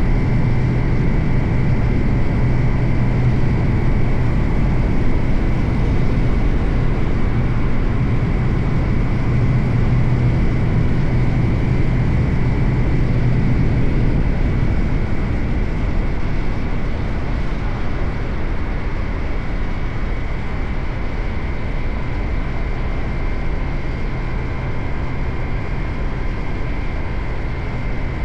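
Suzuki GSX-8R's 776 cc parallel-twin engine running at steady revs under way, with a constant rush of noise. About halfway through, the steady engine drone weakens and the overall level drops a little.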